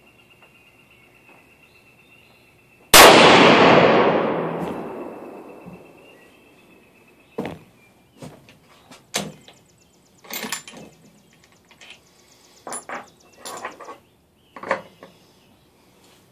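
A single shot from a .257 Weatherby Magnum Weatherby Vanguard bolt-action rifle about three seconds in, very loud and sudden, its report dying away over about three seconds. It is followed by a string of short metallic clicks and clacks as the rifle is handled after the shot.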